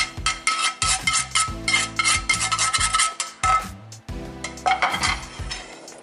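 Metal spoon scraping and stirring a dry mix of roasted semolina, sugar, cashews and raisins around a metal pan, in quick rasping strokes with a brief lull a little past halfway.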